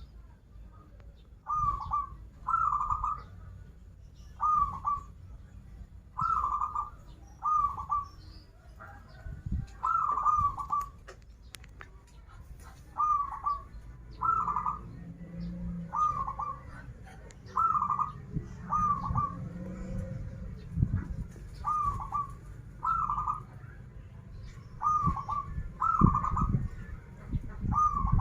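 Zebra dove (perkutut) cooing: short clusters of quick notes, repeated every second or two, over a low rumble.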